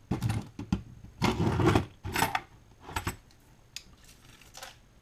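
Small metal fishing tackle clinking and rattling as it is picked through and handled, in several short irregular bursts.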